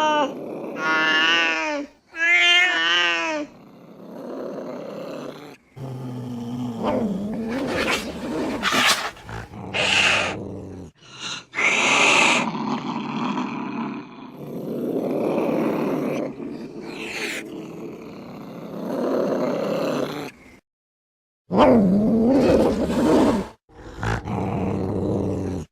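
A string of angry cat sounds: two wavering yowls in the first few seconds, then harsh growls and hisses. The clips are spliced together with short breaks of dead silence between them.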